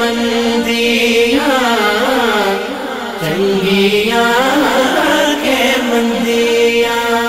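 Devotional naat intro music: a steady held drone note with a chant-like gliding melody above it, dipping briefly about three seconds in.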